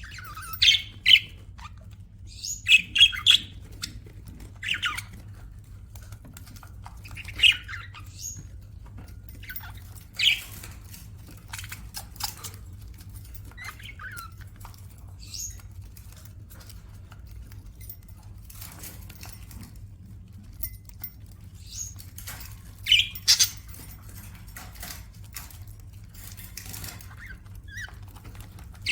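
Budgerigars giving short, scratchy chirps and squawks in scattered bursts, with a long lull in the middle, over a faint steady low hum.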